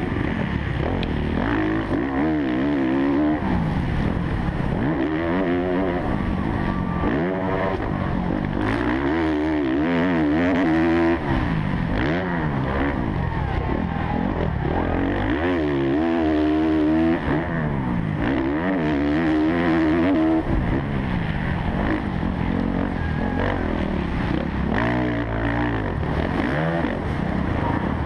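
Kawasaki KX450F motocross bike's single-cylinder four-stroke engine revving hard, heard on board. Its pitch climbs and drops again and again every few seconds as the rider goes on and off the throttle and through the gears around the track.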